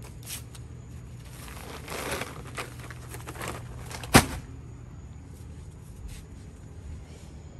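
Bags being handled with rustling for a couple of seconds, then one sharp knock about four seconds in, over a steady low hum.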